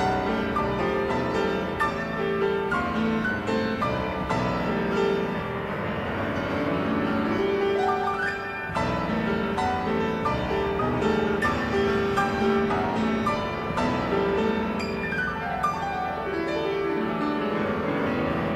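Solo piano playing a movement of a piano sonata, with many sustained, overlapping notes and a brief lull between phrases about nine seconds in.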